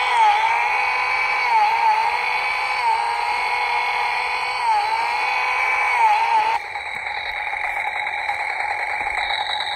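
Toy Stihl chainsaw playing its electronic engine sound: a steady, revving buzz with short dips in pitch every second or two, which cuts off suddenly about seven seconds in, leaving a quieter steady idle tone.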